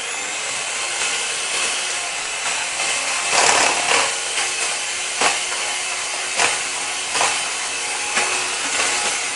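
Handheld electric mixer running at medium speed, its beaters whipping egg whites in a plastic bowl: a steady whirring with a few louder scraping knocks where the beaters catch the bowl.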